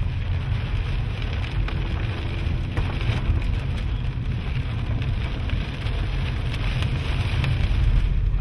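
Rain falling on a car's roof and windshield, heard from inside the cabin as a steady hiss over a steady low rumble of the car.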